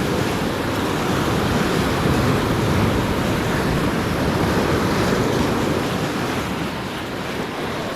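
Small ocean waves washing around a stand-up paddleboard, with wind on the microphone: a steady rush of water noise.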